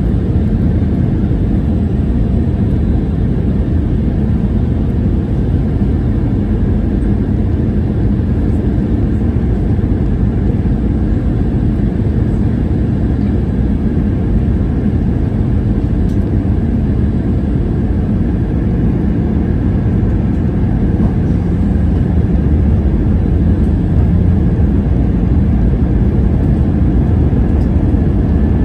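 Steady low-pitched cabin noise inside an Airbus A319 on descent, from its jet engines and the airflow around the fuselage. The noise grows slightly louder about three-quarters of the way through.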